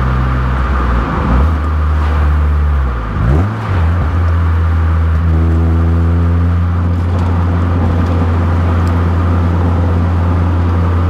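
Honda CR-Z Mugen RZ's 1.5-litre four-cylinder engine pulling at low revs, heard from inside the cabin over tyre and road noise. Its pitch sweeps twice in the first four seconds, then holds steady.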